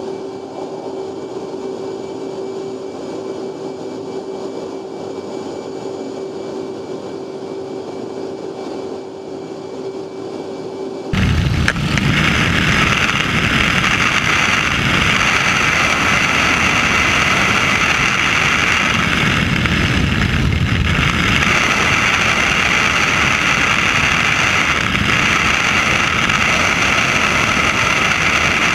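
Steady cabin hum inside an F/A-18 Hornet's cockpit, with one steady tone. About 11 seconds in it cuts abruptly to much louder, even wind and engine noise from the open side window of a propeller photo plane.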